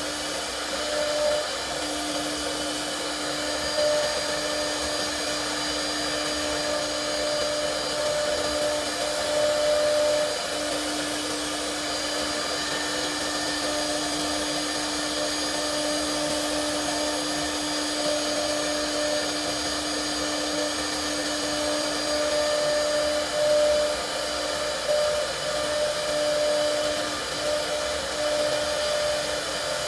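CNC router spindle running with a steady whine over a broad hiss of motor and cutting noise. The tone breaks off briefly a few times, around ten seconds in and again near the end.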